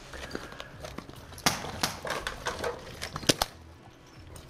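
Airsoft gunfire: an irregular scatter of sharp snaps and clicks, the loudest about a second and a half in and again a little after three seconds, with rustling of gear between them.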